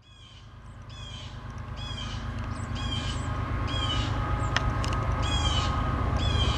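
A bird calling over and over, a short falling call about once a second, over a low rumble that grows as the sound fades in.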